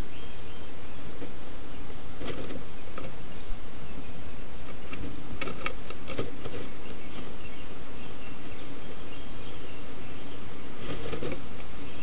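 A wren moving about inside a wooden nest box, rustling the grass and feathers of its nest and scratching against the box, in short scattered bursts with a louder cluster near the end, over a steady hiss.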